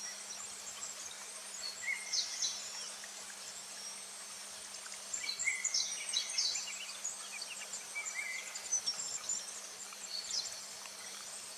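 Summer forest ambience: a steady high insect drone with short bird chirps and trills coming in clusters, about two seconds in, again between five and seven seconds, and near the end.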